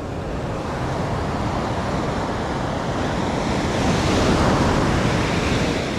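Ocean surf washing against the shore, one wave surging up loudest about four seconds in, then easing.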